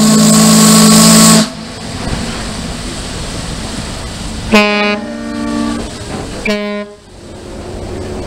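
A ship's whistle blowing three blasts. The first is a long blast that stops about a second and a half in, then a blast of about a second and a half near the middle, then a short one right after; each tone carries a hiss. Steady background noise fills the gaps.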